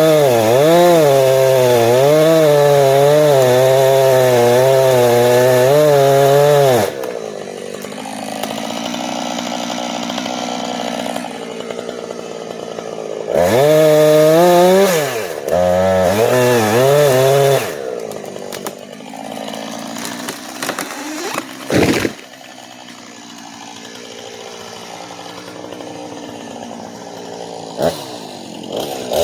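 Two-stroke chainsaw cutting dead ash at full throttle, its pitch wavering under load for about seven seconds, then easing back. Two more short full-throttle bursts follow near the middle, then it runs more quietly with a single sharp knock about three quarters of the way through.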